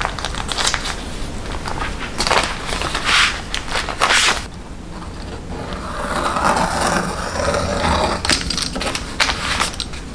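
Snack-making handling sounds: a run of crisp crunches and crinkles in the first half, a softer rustling stretch a little after the middle, then a few sharp clicks near the end.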